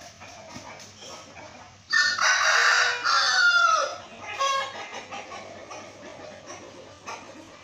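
A rooster crows once, loudly, for about two seconds starting about two seconds in, its pitch falling at the end. A short, quieter call follows.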